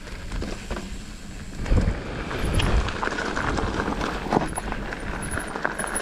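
Mountain bike rolling along a dirt and gravel trail: tyres crunching over the ground, with repeated knocks and rattles as the bike goes over stones and roots, louder from about two seconds in.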